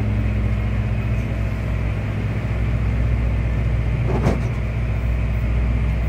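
John Deere 6120 tractor's diesel engine running steadily while mowing, heard from inside the cab as a low, even drone. A brief sharp sound stands out about four seconds in.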